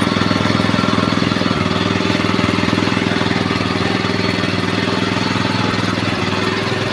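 A motor-driven machine running steadily with a fast, even chugging pulse.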